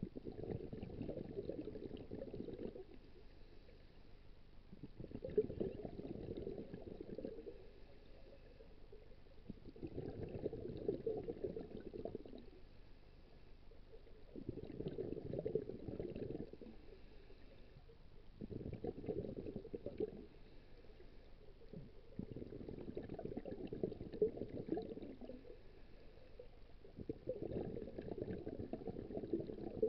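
Scuba divers' exhaled breath bubbling out of the regulator underwater, in a slow breathing rhythm: seven bubbling bursts, each about two seconds long, one every four to five seconds.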